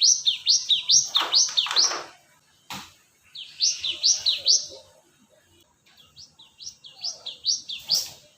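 Cinereous tit (gelatik batu) singing: quick high two-part notes repeated about three times a second, in three runs with short pauses between them. One sharp click comes a little under three seconds in.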